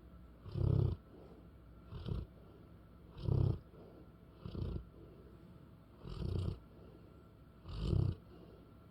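An English bullmastiff snoring in its sleep: a rhythmic run of rasping snores, about one every second and a half, some louder and some softer.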